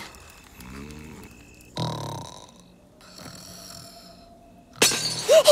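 A sleeping cartoon character snoring, with a louder snore about two seconds in. Near the end comes a sudden loud rush of noise and a short high-pitched cry, the loudest part.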